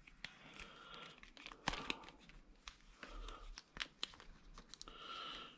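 Rubber cover being rolled back off a motorcycle relay and its plug: faint rubbing and rustling with scattered small clicks.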